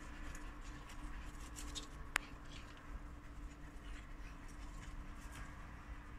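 Faint scratchy crunching of small dogs' paws running on packed snow, over a steady low hum, with one sharp click about two seconds in.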